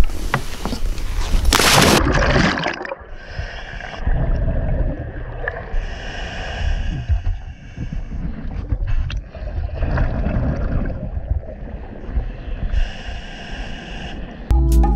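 A scuba diver enters the sea with a loud splash. It is followed by muffled underwater sound of breathing on a scuba regulator, with a bubbling hiss every few seconds.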